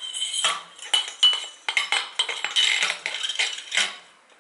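A motorcycle fork's damper cartridge and spring being slid back into the metal fork tube, with a run of metallic rattles, clinks and scrapes over a thin ringing tone. The sounds stop just before four seconds in.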